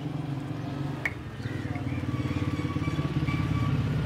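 A combustion engine running steadily with a low, even throb.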